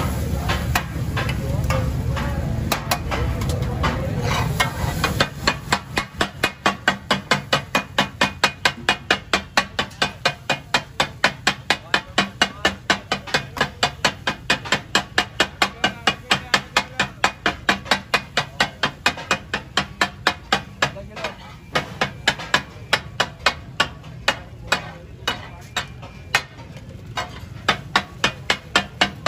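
Katakat: a flat steel spatula chopping and scraping fish pieces on a large iron tawa griddle, a fast, steady clatter of metal striking metal at about three strokes a second. It starts about five seconds in and breaks off briefly once, a little after two-thirds of the way.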